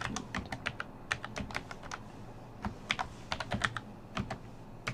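Typing on a computer keyboard: quick, irregular runs of keystroke clicks, with a pause of about a second partway through.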